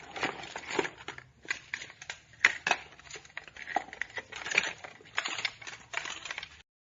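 Objects being broken and crushed: a dense, irregular run of cracks and snaps, the sharpest about two and a half seconds in, cutting off suddenly shortly before the end.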